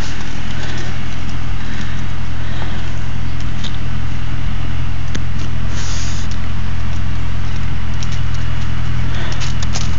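An engine running steadily at a constant low hum, with a few faint clicks on top.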